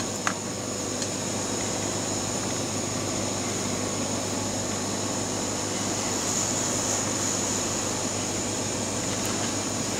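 Hot air gun blowing steadily, a constant rushing hiss with a thin high whine, heating a circuit board to dry it after a thinner wash. A couple of light clicks at the very start.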